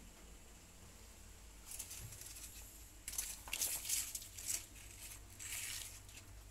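Dry leaves and litter rustling and crinkling in a bamboo rat pen, in several short bursts: about two seconds in, again from three to about four and a half seconds, and once more near five and a half seconds.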